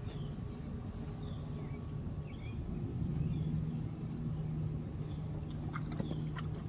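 Outdoor ambience: a steady low mechanical hum with short, high chirps scattered through it and a few light clicks near the end.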